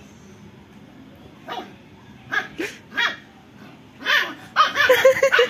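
Dog barking: a few short separate barks starting about a second and a half in, then a louder, quicker run of barks near the end.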